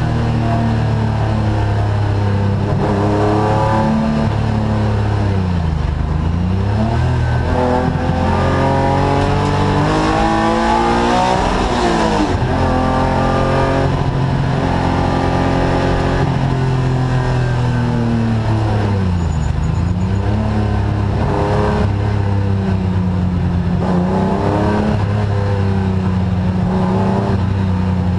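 Race car engine heard from inside the cockpit at racing pace, its pitch repeatedly climbing under acceleration and falling on gear changes and braking. The longest climb, about twelve seconds in, ends in a sudden drop.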